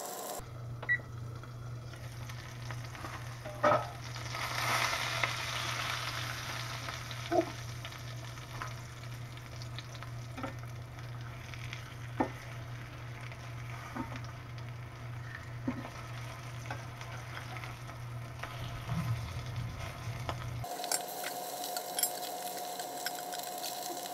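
Slices of jalapeño SPAM sizzling in a cast-iron skillet on low heat, with a few sharp clicks of a fork against the pan as the slices are turned over.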